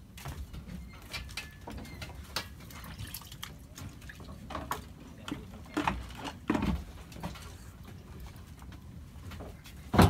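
Scattered small clicks and knocks from people handling fishing gear and buckets on a raft deck, with a couple of louder knocks about two-thirds of the way through and a sharp, loudest knock near the end.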